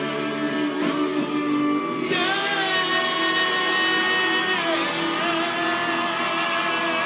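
Live band music: held chords from guitars and other instruments with a singing voice, shifting to a new, brighter chord about two seconds in.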